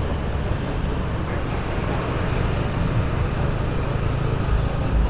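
Steady road traffic noise with a low rumble, heard from a motorbike riding through city traffic.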